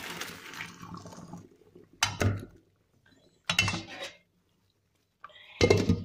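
Boiled noodles and hot water poured into a stainless steel colander, the water rushing through for about a second and a half. Then three sharp clanks of metal cookware, about two, three and a half and five and a half seconds in.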